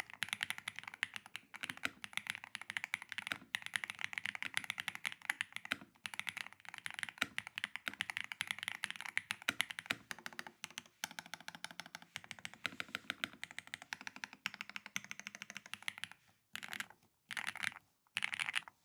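Fast, continuous typing on a custom 60% mechanical keyboard: an Arbiter Studio ARC60 in a KBDfans Holy60 case, with UR Studio ICE Ultra switches and DROP DCX keycaps. Near the end the typing breaks into short bursts with brief pauses between them.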